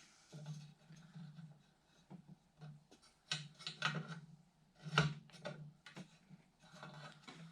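Irregular small metal clicks, scrapes and rubbing from hands and a tool working on a Coleman gas lantern, tightening its loose generator nut; the sharpest click comes about five seconds in.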